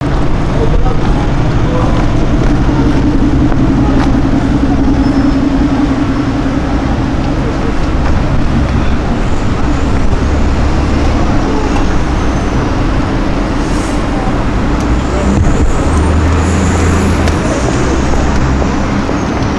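Aston Martin Vanquish Zagato Shooting Brake's V12 engine running steadily at low speed as the car crawls past, with street traffic behind it.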